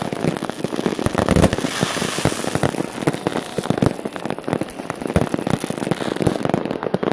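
Many fireworks going off at once: a dense, unbroken run of overlapping bangs and firecracker crackling from rockets and fireworks batteries.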